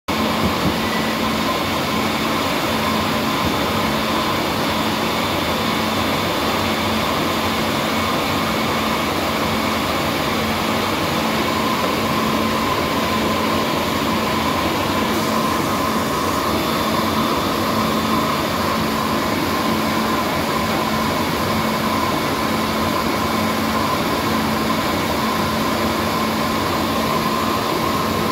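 Steady machine noise: an even rushing drone with a constant hum and a few held tones, typical of running plant machinery or ventilation around a working control cabinet.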